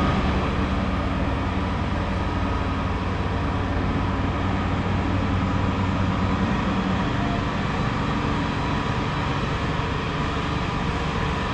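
Steady, loud running noise of a vehicle, a dense rumble with a faint hum.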